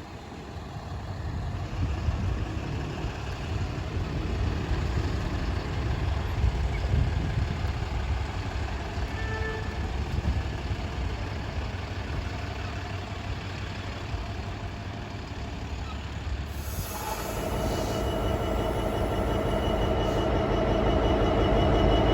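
Class 66 diesel locomotive's EMD two-stroke V12 throttling up to pull away, its engine note with several steady tones coming in about two-thirds of the way through and growing louder. Before that, a low rumble.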